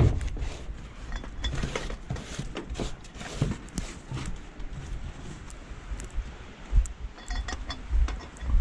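Scattered metal clinks and knocks of tools and jack gear being handled during a truck tire change, over a low rumble.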